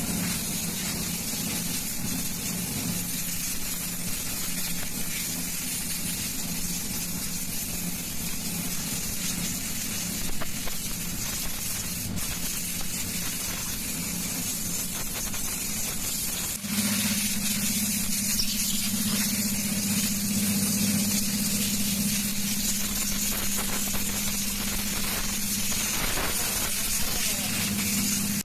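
Komatsu PC210-8 hydraulic excavator running, with a steady engine drone under a strong hydraulic hiss. It gets louder and the drone firmer about seventeen seconds in.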